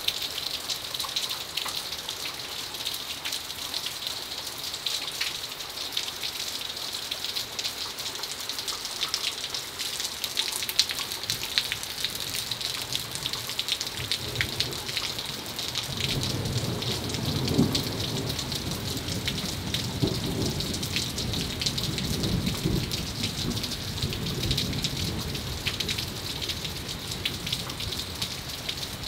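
Steady rain falling on a house's roof edge, gutter and yard, with many close drops clicking. About halfway through, a low rumble of thunder rolls in and lasts several seconds.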